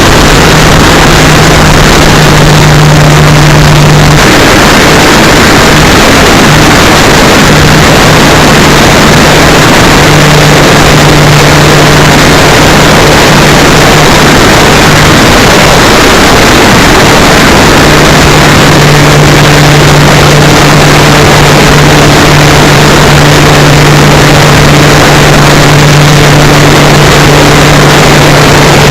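Electric motor and propeller of an RC Cessna 182 model running steadily, a low drone under loud wind rush that nearly overloads the keychain camera's microphone. The propeller tone fades briefly a few times.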